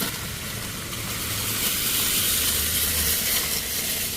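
A vehicle passing close by: a steady hiss of tyre and engine noise with a low rumble that swells for a couple of seconds and then eases off.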